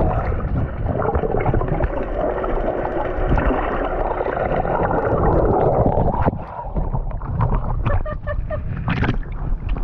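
Sea water sloshing and gurgling around a swimmer who has just jumped in, sounding muffled, with a steady churn for about six seconds and then scattered light splashes.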